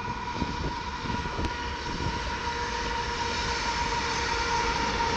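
A long train passing: a steady rumble that slowly grows louder, with a faint steady whine running through it.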